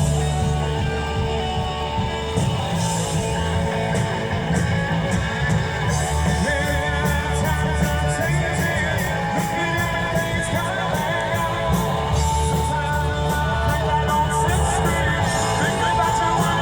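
Rock band playing live: electric guitar over bass and drums, with singing at times.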